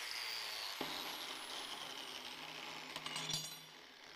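Angle grinder cleaning rust off small steel plates, a steady high hissing whine. Its pitch falls slowly as the grinder winds down, and there is a knock near the end as it is set down on the steel table.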